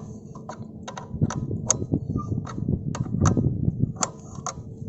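Irregular metallic clicks and taps of a spanner working the chain-adjuster bolt on a KTM Duke 125's swingarm. Dull handling knocks come in about a second in and run to near the end.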